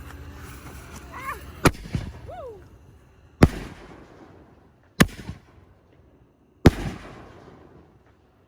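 Consumer fireworks going off: four sharp bangs about a second and a half apart, each followed by a fading crackle.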